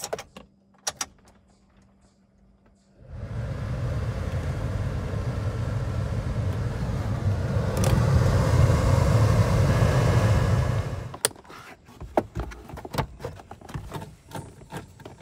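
Clicks of the ignition key, then a newly replaced climate-control blower motor in a 2004 GMC Envoy starting about three seconds in. It runs with a steady rush of air, steps up louder after a click about eight seconds in, and stops suddenly about eleven seconds in: the new motor works. After that come small clicks and rattles of a screwdriver driving the lower dash panel screws back in.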